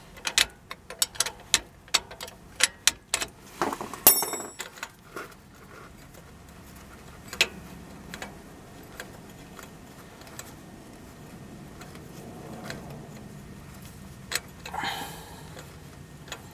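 A wrench on a belt tensioner/idler bolt, clicking in quick repeated strokes, about three a second, as the bolt is worked loose, then a louder metallic clatter about four seconds in. After that, lighter clicks and handling of metal parts as the bolt is turned out by hand, with a brief rustle near the end.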